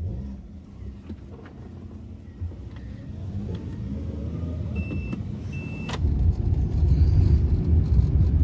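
Car driving on a winding road, heard from inside the cabin: steady engine and road rumble, with the engine note rising as it picks up speed. Two short high beeps come about halfway through, and after about six seconds the rumble turns suddenly louder and rougher.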